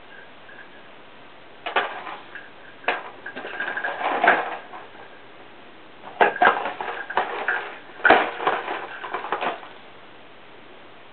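A cat pawing and scrabbling at a cardboard tissue box with a toy mouse inside: three spells of quick knocks, scratches and rattles, the last and busiest near the middle to the end.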